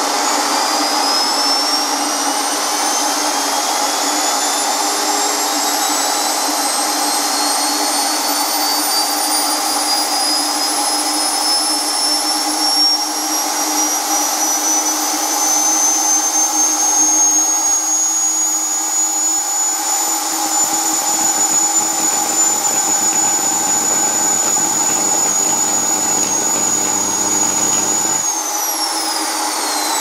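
Exposed Hoover vacuum cleaner motor running on a rising supply voltage: its whine climbs steadily in pitch, then holds at a high speed. Near the end the power cuts out and the whine falls away as the motor spins down, its thermal overload having tripped.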